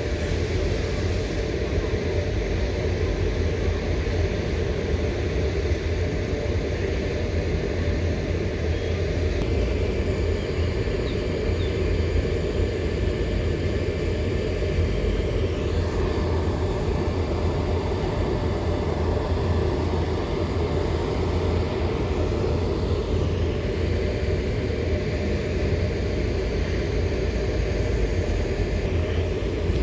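ALe 426 'TAF' double-deck electric multiple unit running: a steady low rumble with faint steady high tones over it.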